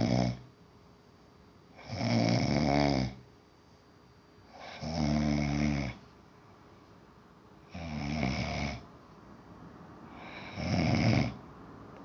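A sleeping person snoring in a steady rhythm: four full snores about a second long, one about every three seconds, after the tail of one at the start.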